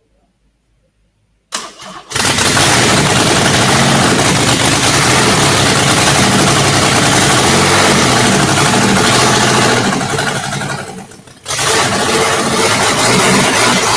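Rebuilt 1997 Monte Carlo 3.4-litre V6 cranking and catching about a second and a half in, then running loud with no muffler on its exhaust. About ten seconds in it sags nearly to a stall, then picks up and runs loud again.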